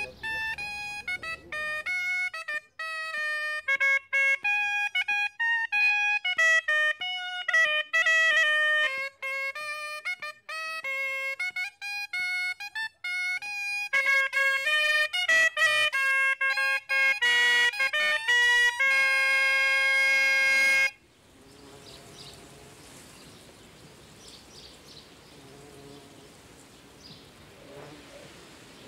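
A black wooden wind instrument plays a quick solo melody with a bright tone, ending on a long held note about twenty seconds in. The music then stops, leaving a faint outdoor background with a few faint chirps.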